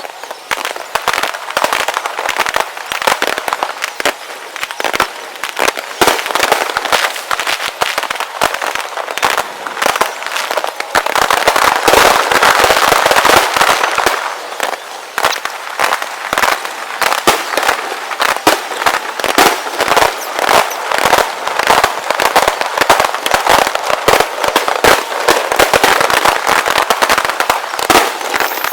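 Aerial fireworks show played back sped up: a dense, unbroken run of rapid bangs and crackling, with the bursts tumbling over one another.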